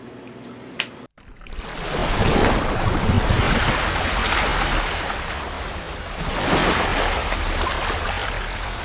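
Wind rushing over the microphone and water noise from a boat under way, with a low engine hum beneath; it starts abruptly about a second in after a moment of room tone.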